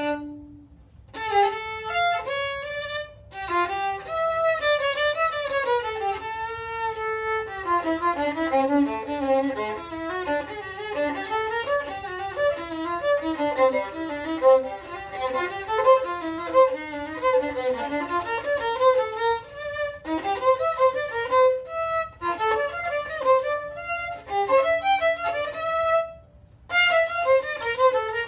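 Solo violin bowing an orchestral second-violin part alone, a running melodic line of notes. It breaks for a short rest about a second in and again near the end.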